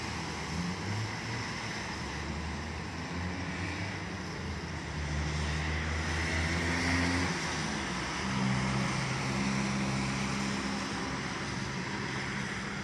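Road traffic on a rain-wet multi-lane street: cars passing with tyre hiss on the wet asphalt and engine hum, louder as vehicles go by about five and eight seconds in.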